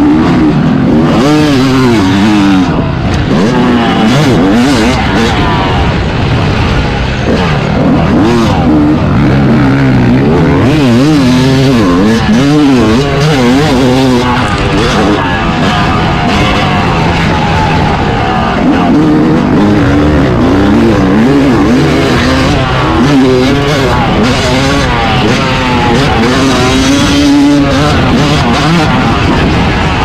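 Yamaha YZ250 single-cylinder two-stroke motocross engine at race pace, its pitch climbing and dropping over and over as the throttle is opened hard and shut off. Loud throughout, with no break in the engine sound.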